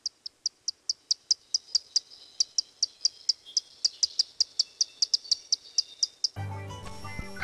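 A steady train of short, high-pitched chirps, about four or five a second, that stops about six seconds in. A low steady hum with hiss takes over near the end.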